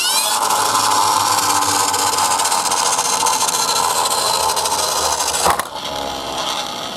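Toy garbage-truck minicar rolling down a slope on its plastic wheels: a steady rattling run that ends with a sharp knock about five and a half seconds in.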